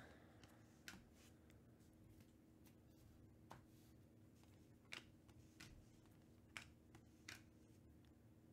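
Near silence with about six faint, irregular clicks of trading cards being slid off a handheld stack one at a time.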